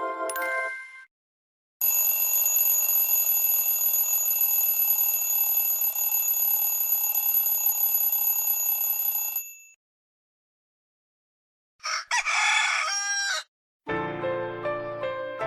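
Huawei EMUI 2.3 phone tones played back to back. A chime dies away at the start, then a steady ringing tone sounds for about seven and a half seconds. After a pause comes a short rooster crow, and a piano melody starts near the end.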